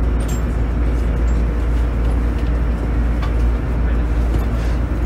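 Running noise of a JR East GV-E400 diesel-electric railcar heard from inside the cabin: a steady deep drone from the diesel generator engine and traction equipment under wheel-on-rail rumble, with a few faint clicks from the track.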